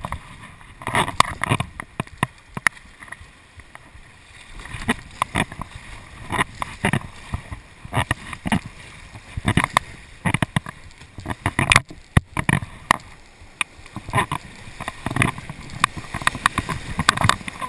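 Kayak paddle blades dipping and splashing in river water in quick, irregular strokes, with water sloshing against the hull. Near the end the kayak runs through rapids with white water rushing around it.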